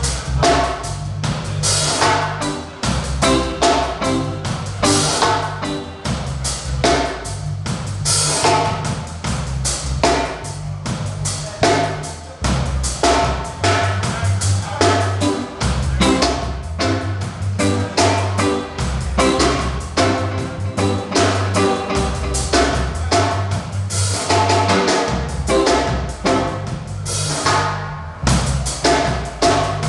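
Band playing live at a sound check: a drum kit keeping a steady beat on snare and bass drum, over a line of low bass notes.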